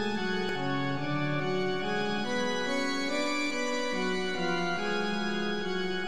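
Background instrumental music: slow, sustained organ-like keyboard chords, the held notes changing about every half second to a second, with no drums.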